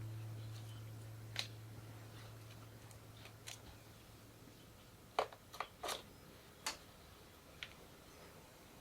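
A low held note, the tail of the background music, fades out over the first few seconds. Then come a handful of light clicks and taps, three in quick succession about five seconds in.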